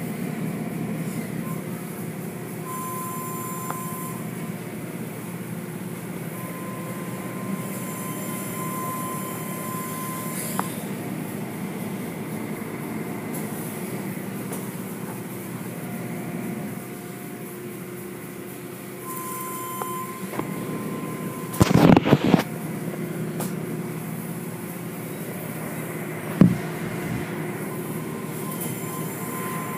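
Automatic tunnel car wash running: a steady mechanical rumble with water spray and cloth strips working over a car. A high steady whine comes and goes several times, and a loud burst of noise comes about two-thirds of the way through.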